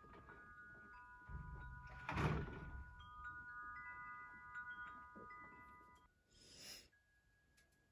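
Wind chime ringing softly, several notes of different pitch struck at different moments and left to ring on, overlapping. A louder, brief noise comes about two seconds in.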